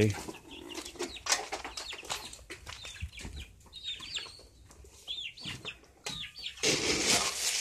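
Chickens clucking and chirping, with scattered knocks. Near the end a loud rustling noise starts.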